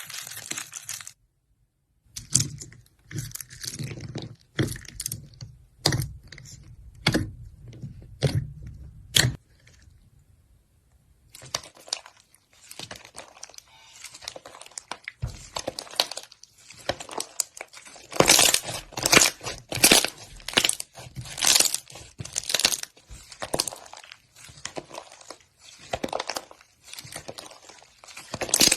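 Slime being squeezed, poked and pressed by hand, giving short irregular clicks and pops. There is a brief lull about ten seconds in, then the clicking grows denser and louder in the second half.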